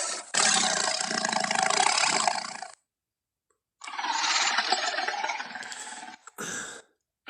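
Film sound effects of a Tarbosaurus roaring: two long roars of about two seconds each, separated by dead silence, then a short burst near the end.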